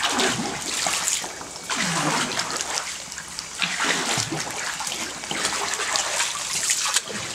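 Water splashing and sloshing around a bamboo raft as it is poled through still water, the splashes swelling about every two seconds with the pole strokes.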